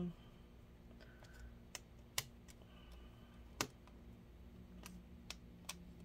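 Small screwdriver tightening screws in a laptop's metal trackpad bracket: a few faint, irregular clicks and ticks of the driver tip and screws against metal, two of them sharper, about two and three and a half seconds in.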